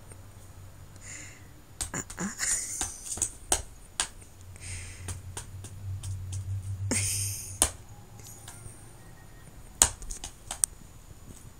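Abacus case being pawed and batted across a rug by a cat: scattered sharp clicks and a few brief scuffing sounds, with the loudest click near the end.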